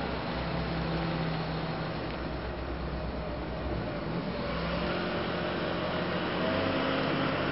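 2015 Cat 966M wheel loader's diesel engine running steadily as the machine travels and turns. The engine note shifts about halfway through and gets a little louder near the end as the loader comes toward the listener.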